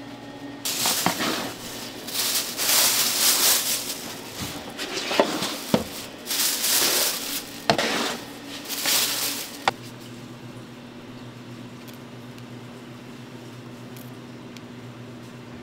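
Bursts of rustling and scraping from hands and utensils at work, with a few sharp clicks, over a low steady hum. The scraping stops about ten seconds in, leaving only the hum.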